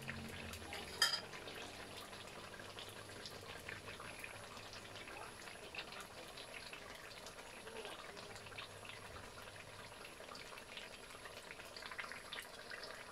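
Battered breadfruit slices deep-frying in hot oil in a wok: a steady sizzling and bubbling dotted with many small crackles. A single sharp click sounds about a second in.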